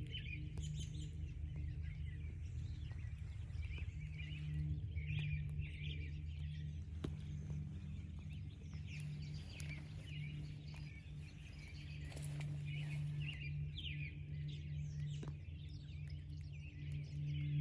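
Many small birds chirping and calling on and off, over a steady low hum.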